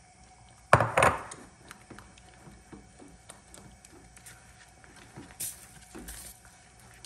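A silicone spatula stirring corn fufu flour into water in a stainless saucepan, with small taps and scrapes against the pan. A loud knock rings out about a second in, and two short scrapes come near the end.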